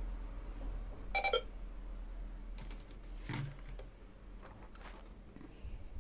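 A toy cash register's barcode scanner gives one short electronic beep as a toy item is scanned, followed by plastic knocks and clicks of the toy pieces being handled.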